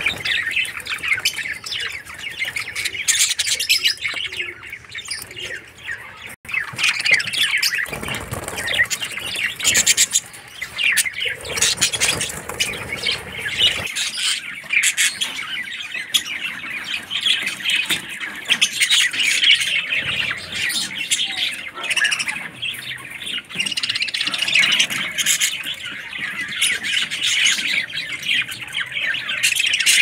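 A group of budgerigars chattering and chirping continuously, many short calls overlapping.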